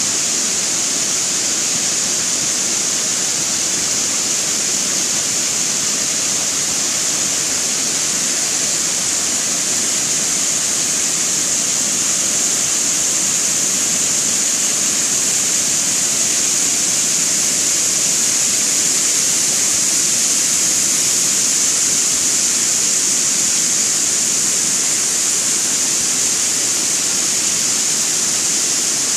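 Waterfall: water pouring over a stone weir and falling into a rock gorge pool, a loud, steady rushing hiss.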